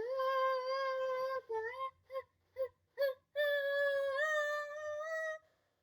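A girl singing solo without accompaniment, on held vowels rather than clear words. She holds one long note, sings a quick run of about five short notes, then holds another long note that steps up in pitch partway through.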